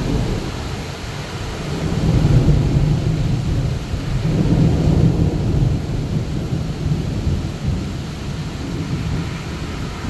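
Long roll of thunder rumbling over heavy, steady rain. The rumble swells about two seconds in, swells again around the middle, then slowly dies away.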